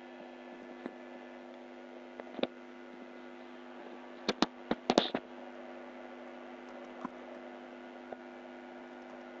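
Computer keyboard keys being typed: a quick run of about six keystrokes around four to five seconds in, with a few single key clicks before and after, over a steady low electrical hum.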